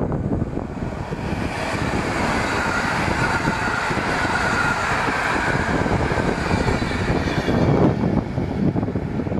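An electric passenger train passing at speed close by: an EP09 locomotive and its intercity coaches, with a steady rushing clatter of wheels on rails that swells in the middle as the coaches go by.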